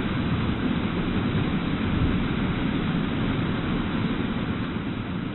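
Tsunami floodwater surging through a building's ground floor: a steady, low rushing of turbulent water.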